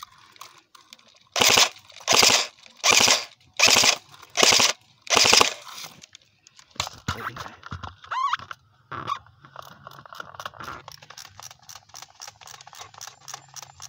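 Airsoft rifle firing six short full-auto bursts in quick succession, about three-quarters of a second apart, followed by softer scattered clicks.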